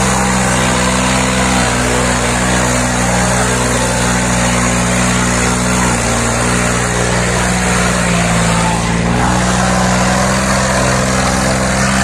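John Deere 5310 tractor's diesel engine running hard under heavy load as it drags two disc harrows through the soil. It is a loud, steady drone whose pitch sags briefly about halfway through and again a little later.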